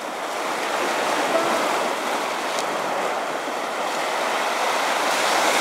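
Sea surf washing over a low concrete breakwater: a steady rush of waves that swells a little near the end.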